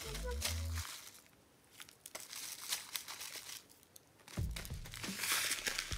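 Granola pouch crinkling as it is tipped and handled, with scattered small clicks of granola and a spoon against plastic food containers; the crinkling grows louder near the end.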